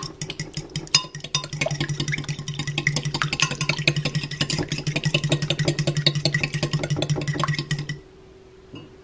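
Metal fork beating eggs in a glass Pyrex bowl, clinking rapidly and evenly against the glass as it whisks, several strikes a second; the beating stops about eight seconds in.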